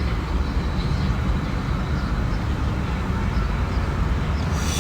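Steady low rumble of motor-vehicle noise with an even hiss above it.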